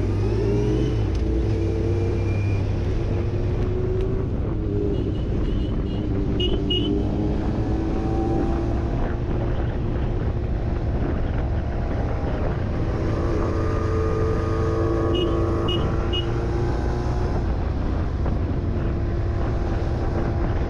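Motorcycle engine running under way with wind noise, its pitch rising as it accelerates about a second in and again about two-thirds of the way through, then settling to a steady cruise.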